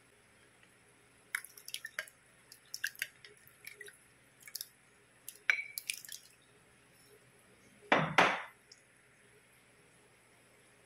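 Wet clicks and splats as sticky cubes of white gulaman in condensed milk slide out of a bowl into a glass dish, then two louder, longer noises about eight seconds in.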